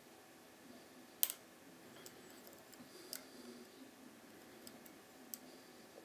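Lock pick working the pins of a cutaway brass TESA T60 euro cylinder held under a tension wrench: a few small sharp metal clicks, the loudest about a second in, with fainter ticks between.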